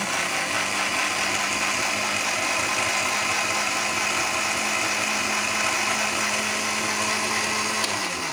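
Electric mixer-grinder with a small glass chutney jar running at full speed, blending raw-mango chutney with yogurt: a steady motor whine. It begins to wind down, falling in pitch, near the end.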